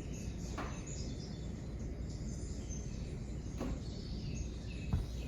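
Steady low background noise with a few faint, brief high chirps.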